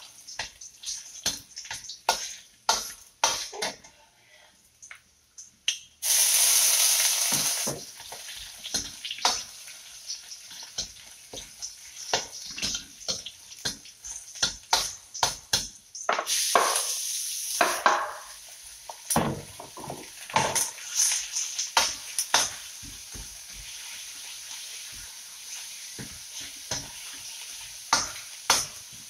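Metal wok ladle clanking and scraping against a steel wok during stir-frying. Food sizzles in hot oil, surging loudly about six seconds in and again about sixteen seconds in, then sizzling more steadily under the ladle's repeated clicks.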